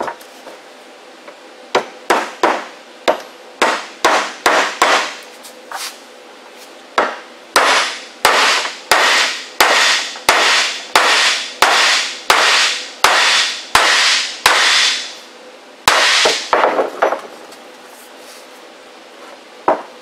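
Hammer blows on steel, about two a second with a ringing after each, driving a new Spicer U-joint bearing cap home in a Dana 44 front axle shaft yoke. The blows pause briefly about six seconds in and stop around seventeen seconds.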